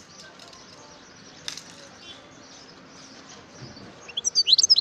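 European goldfinch breaking into a quick burst of bright, rapid twittering near the end, after a quiet stretch with faint chirps and a single sharp click about one and a half seconds in.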